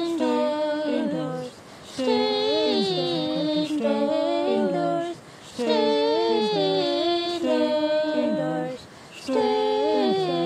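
A woman's voice, layered in several parts, singing an a cappella round unaccompanied, in phrases of about three and a half seconds with short breaks between them.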